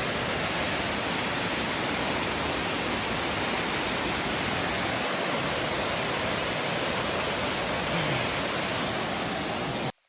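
Steady roar of a nearby waterfall, Upper Catawba Falls, with rushing water. It cuts off suddenly near the end.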